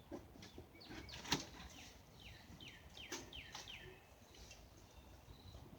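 Faint bird chirps: a series of short calls, each sliding downward in pitch, with one sharp click a little over a second in.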